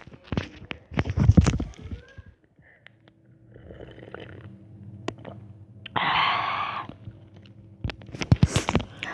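Close-up ramen eating sounds: utensils clicking and knocking against the cup in the first two seconds and again near the end, with a short noisy burst about six seconds in, over a faint steady hum.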